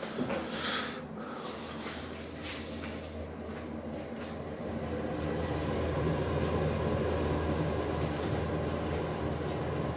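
A steady low machine hum that gets louder about halfway through, with a few light clicks and knocks.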